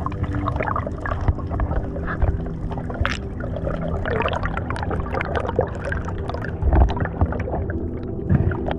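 Underwater water noise picked up by a submerged camera: irregular bubbling, gurgling and crackling, with a louder bump near the end, over soft sustained background music.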